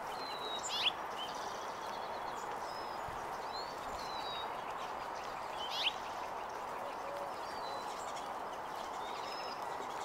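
Feeding flock of white-crowned and golden-crowned sparrows giving scattered short, high chips and thin whistled calls over a steady background hiss. Two louder, sharp sweeping calls stand out, about a second in and again near six seconds.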